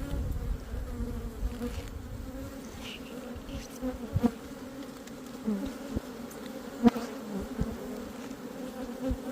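Honeybees from an opened hive buzzing, a steady hum throughout, broken by a few sharp knocks, the loudest about four and seven seconds in.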